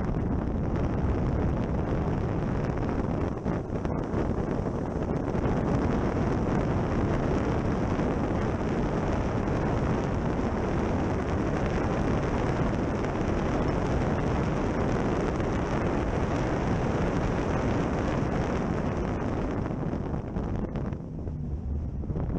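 Heavy wind noise on a car-mounted action camera at track speed, over the car's engine and tyre noise. It eases briefly near the end.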